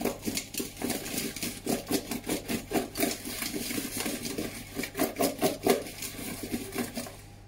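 Oiled baby potatoes being tossed in a bowl, knocking and rattling against the bowl and each other in a fast, irregular run of knocks as they are coated with salt and dried herbs.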